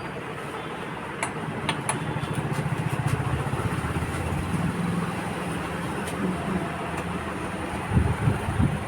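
A motor running steadily, louder from about a second in, with a few sharp clicks over it.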